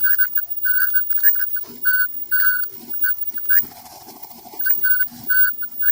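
Running clothes dryer squeaking: short, high squeals of the turning drum, two or three a second and unevenly spaced, with a brief break about three and a half seconds in. The owner puts it down to worn front drum sliders and something more at the back of the drum.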